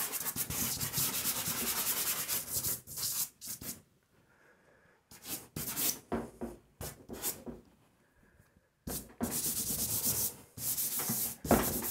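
Dry pastel stick scratching and rubbing across paper on a board in quick back-and-forth strokes. It stops twice, about four seconds in and again about eight seconds in, then resumes about nine seconds in.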